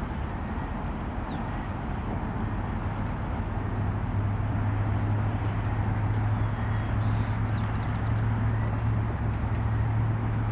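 Steady low engine hum over a noisy background, growing louder a few seconds in, with a few faint high bird chirps.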